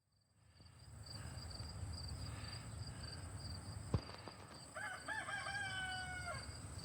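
A rooster crowing once, a single cock-a-doodle-doo lasting under two seconds, about five seconds in. A sharp click comes just before it, over a faint high pulsing chirr and low rumble.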